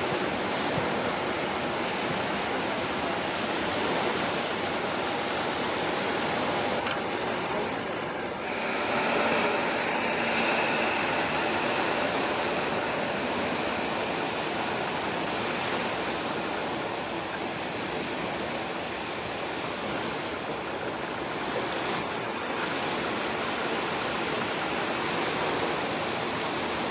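Wizz Air Airbus A321neo's Pratt & Whitney PW1100G geared-turbofan engines at taxi power as it lines up: a steady rushing noise, with a faint high whine that comes in about eight seconds in and fades a few seconds later.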